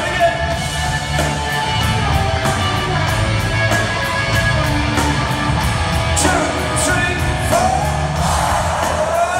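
Rock music with a steady beat: a band playing while a lead singer holds long sung lines near the start and again near the end.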